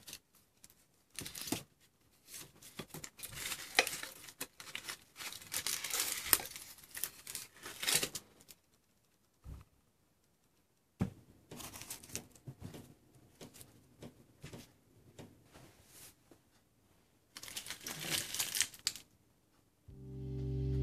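Packaging material being crinkled and torn by hand in three bouts, the first and longest, a shorter one in the middle and a brief one near the end.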